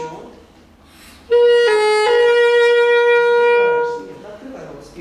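Alto saxophone playing a three-note phrase after a short pause: a short note, one a step lower, then a long held note back on the first pitch. It is a student's repeated attempt to sound the opening notes fully from the very first note.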